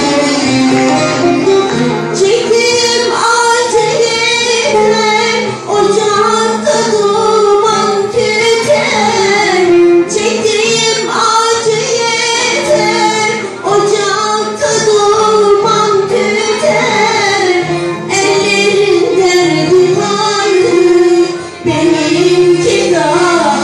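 A woman singing a Turkish folk song, her melody bending and wavering, over a folk-ensemble accompaniment that includes plucked long-necked lutes (bağlama).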